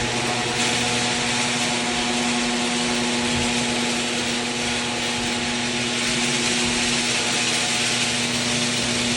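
Genie garage door opener running, raising the door: a steady motor hum under a loud, even whir of the drive.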